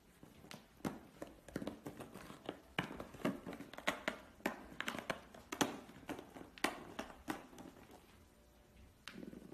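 A ball clattering around a plastic cat ball-track toy as cats bat at it: irregular clicks and knocks of the ball and paws on the plastic, thinning out near the end.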